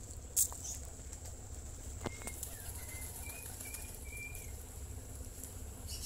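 A flock of domestic pigeons feeding on scattered grain, with wings flapping and pecking and scuffling on concrete. A sharp tap comes about half a second in, and a few faint high chirps sound between about two and four and a half seconds, over a steady low hum.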